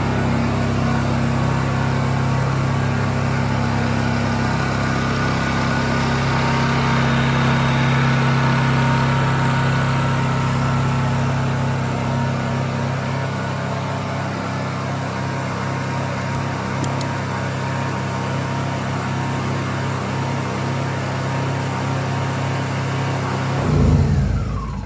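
Honda EU2200i inverter generator's small single-cylinder four-stroke engine running steadily just after being pull-started. Near the end its pitch drops and it winds down to a stop.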